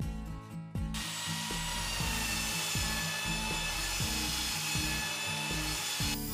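Handheld electric power tool running against wood, a steady whine over a dense rasping noise. It starts about a second in and cuts off near the end.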